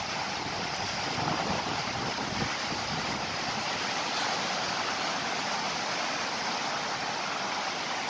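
Sea surf washing onto a rocky shore: a steady rush of breaking waves, with some wind on the microphone.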